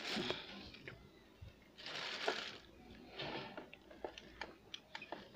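Plastic wrapping crinkling in a few short rustles as a new electric demolition breaker is pulled out of its bag, followed by a run of light clicks and knocks as the tool is handled over its hard plastic case.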